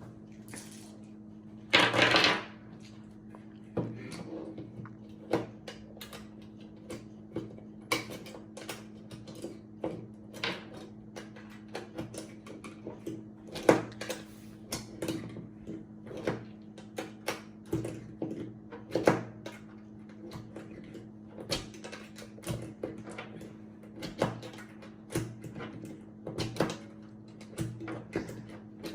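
Irregular small clicks and clinks of 9mm rounds being pressed one by one into a pistol magazine with a magazine loader, over a steady low hum. A louder clatter comes about two seconds in.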